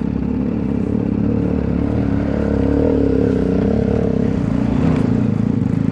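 TVS Apache RR 310's single-cylinder engine running as the motorcycle rolls slowly over a rough dirt track, its note swelling a little midway.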